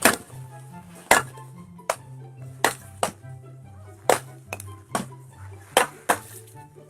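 Background music with a stepping bass line, over sharp clinking strikes coming at uneven intervals of about half a second to a second.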